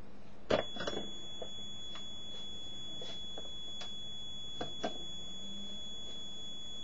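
Plastic push buttons on a homemade Arduino Uno game-show buzzer clicking as they are pressed. About half a second in, a press sets off a steady high-pitched beep from the buzzer box's small speaker, which keeps sounding while several more button clicks and taps are heard.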